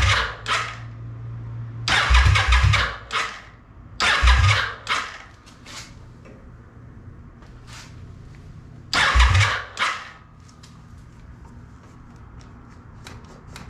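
Kawasaki VN750 Vulcan's V-twin being cranked by its electric starter in four short bursts, with low thudding pulses, and not catching. The owner wonders whether the oil is a little too thick for it to turn over properly.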